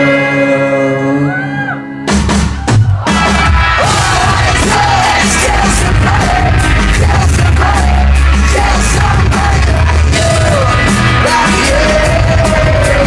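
Loud live rock band with singing and crowd yelling. A quieter held chord with a sung note gives way about two seconds in to the full band, drums and guitars, coming in all at once.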